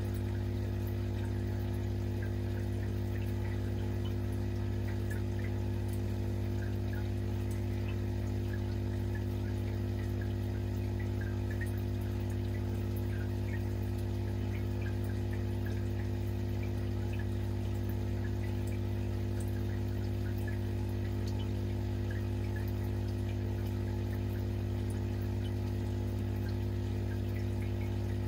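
Steady low hum of an aquarium pump, with faint water trickling and small drips over it.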